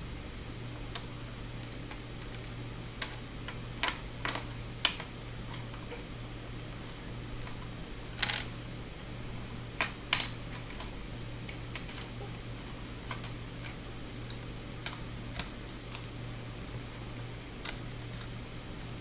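Plastic LEGO bricks clicking and clattering as they are handled and pressed together: irregular sharp clicks, loudest about four to five seconds in and again around ten seconds in. A low steady hum runs underneath.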